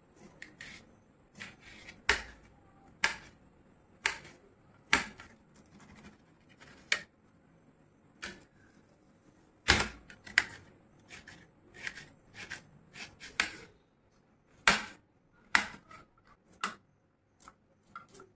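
Kitchen knife slicing cucumber and onion on a metal plate, each cut ending in a sharp click of the blade against the metal, irregularly about once or twice a second. Near the end, quieter snips of scissors cutting a green chilli.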